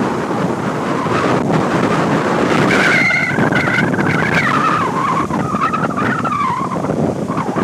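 A car skidding on the flooded, wet pavement of a parking lot, its tyres giving a wavering high squeal from about three seconds in. The squeal lasts about four seconds and slides slowly down in pitch, over a steady rushing noise.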